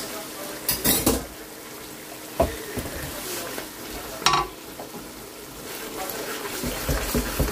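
Wooden spoon stirring yogurt into masala frying in a metal pot: a steady sizzle, with a few knocks and scrapes of the spoon against the pot.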